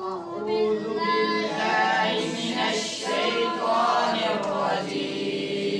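A group of boys singing together as a choir, the voices rising and falling through a phrase and ending on a held note near the end.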